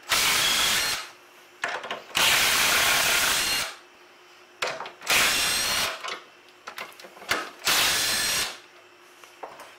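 Cordless power drill with a socket, run in four bursts of about a second each to back out steering rack mounting bolts, with small clicks between bursts.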